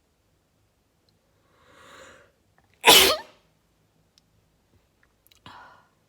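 A person sneezing once, loud and sudden, about three seconds in, after a softer drawn-in breath; a short breath follows near the end.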